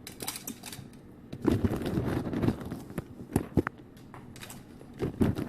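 Dry pasta and its packet being handled and tipped into a pot: a busy run of clicks, rattles and rustling.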